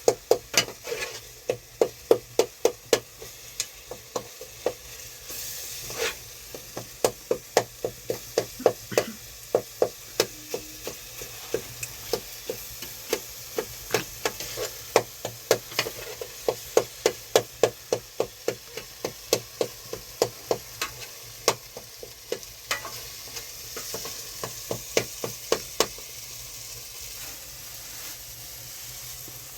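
Rapid, regular knocking, about two to three strikes a second, over a steady hiss. The strikes thin out and stop a few seconds before the end.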